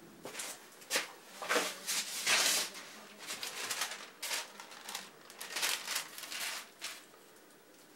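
Paper rustling and crinkling in irregular bursts as large sheets and a paper template are handled against a board. It dies away near the end.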